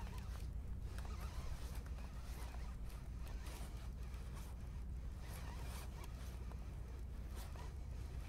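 Fishing reel being cranked to wind in line with a fish on, a zipper-like whirring in uneven spells over a steady low rumble.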